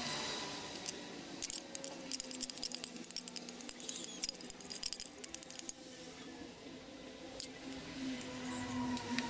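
A metal spoon clicking and scraping against a metal saucepan, scraping a thick topping out of it: a quick run of light metallic clicks in the first half, thinning out later, over a faint steady hum.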